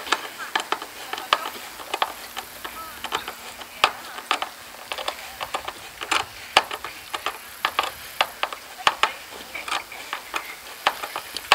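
Hand screwdriver driving screws into a pole-anchor mount: irregular sharp clicks, several a second.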